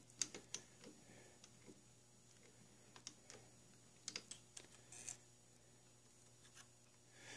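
Faint, light metallic clicks and taps in small scattered clusters: a small steel tool tapping and handling a workpiece clamped in a milling-machine vise as it is nudged into alignment against a dial test indicator.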